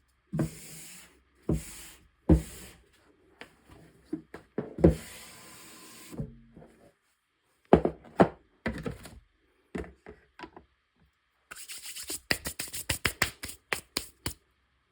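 Crushed chalk powder being tapped and scraped together: sharp knocks, several trailed by a short gritty hiss, then a quick flurry of small crackly clicks near the end.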